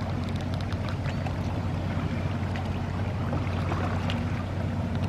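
Boat engine running with a steady low hum, under the rush and small splashes of water.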